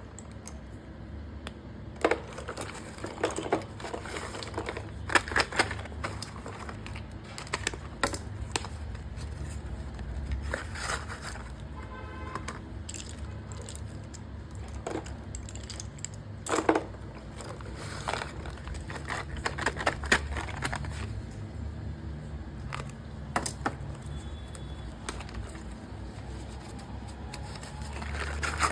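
Hands handling a parcel's packaging and its contents: irregular crackles, crinkles, tearing and sharp snaps, with a short run of rapid ticks near the middle.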